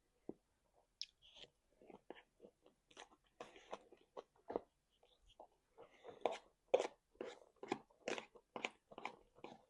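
A person chewing food with the mouth close to the microphone, in irregular strokes, sparse at first and then busier and louder at about two to three chews a second from about six seconds in.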